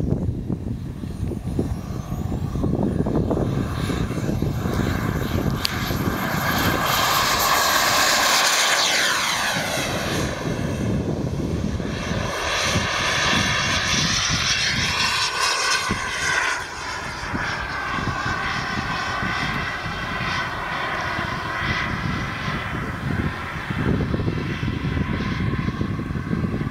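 JetCat Titan model gas-turbine engine of a radio-controlled F-22 Raptor jet, whining at high power as the jet takes off and flies over the field. The whine swells, drops steeply in pitch as the jet passes by about nine seconds in, then rises and falls again as it flies on.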